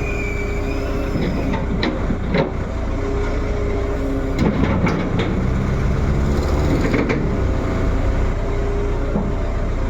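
Heavy diesel engine running steadily, with a few short metallic knocks and squeaks over it.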